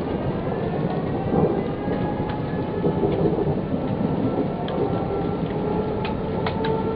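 Thunderstorm: steady heavy rain under a continuous low rumble of thunder, with a few sharp ticks.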